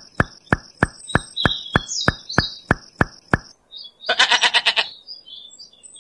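A regular clicking, about three a second, with a thin steady high tone and birds chirping, stops about three and a half seconds in. A single long, wavering sheep bleat follows shortly after.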